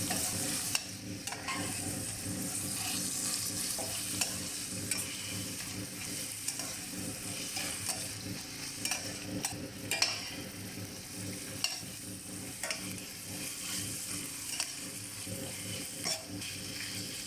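Chicken breast pieces frying in a pan with a steady sizzle, with short scrapes and clacks of a utensil stirring them every second or two.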